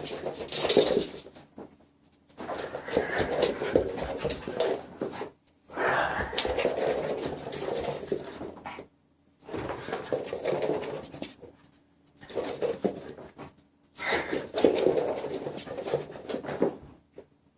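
Maltese dog panting hard during play, in several stretches a few seconds long broken by short silences.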